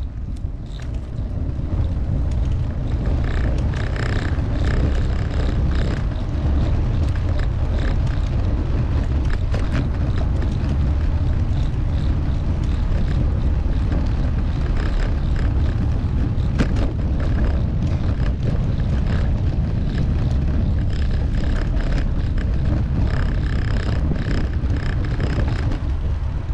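Wind rumble on the microphone and the rattle of a bicycle being ridden, with many small clicks and knocks. Brief high squeals sound about four seconds in and again near the end.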